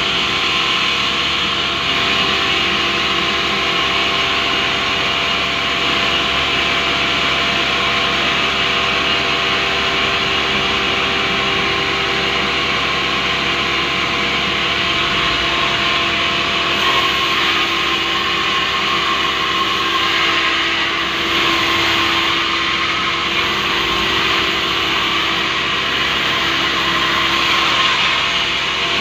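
Sawmill band saw running steadily without cutting, a constant machine hum and hiss with a few steady tones.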